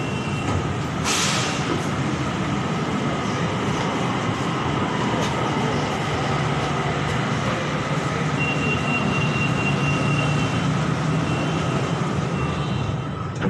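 BTS SkyTrain electric train heard from inside the carriage, running with a steady rumble of wheels on rail. There is a short hiss about a second in, a faint whine that slides down in pitch a few seconds later, and a thin high squeal lasting about two seconds past the middle.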